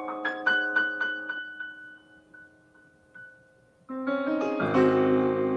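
Solo piano playing a slow passage, the beginning of a movement from a symphony in progress. A few struck notes ring and fade almost to silence, then fuller chords with deep bass notes come in about four seconds in.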